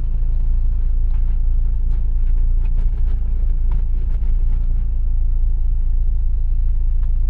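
1985 Nissan 720's 2.4-litre Z24 four-cylinder engine idling steadily, a low even rumble with a few faint light clicks over it.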